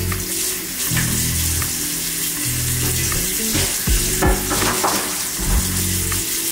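Bathroom tap running into a ceramic basin in a steady hiss, as a hair-dye bowl and tint brush are rinsed and scrubbed under the stream.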